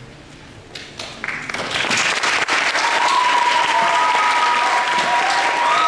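Audience applause starting about a second in and swelling quickly, with a few long high cheers from the crowd above it.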